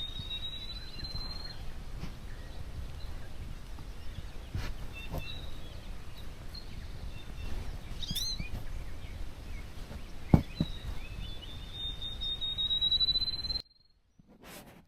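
Outdoor ambience with wild birdsong: a long thin whistle rising slightly in pitch, a few short chirps, and a couple of faint clicks. The sound cuts off suddenly near the end.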